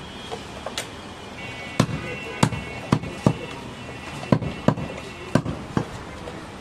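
Heavy butcher's cleaver chopping goat meat on a round wooden log block: sharp, uneven chops, about nine in all, roughly one or two a second.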